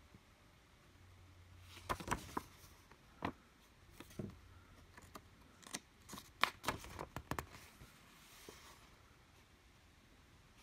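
A folded paper quick-start guide being handled and opened out: scattered crisp paper crackles and taps, most of them in a cluster past the middle, then a soft rustle.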